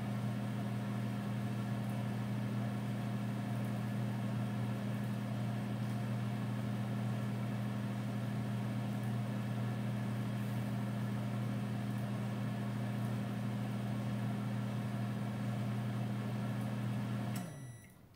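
Over-the-range microwave oven running with a steady low hum, heating a frozen steak. The hum sags and stops shortly before the end as the heating cycle finishes.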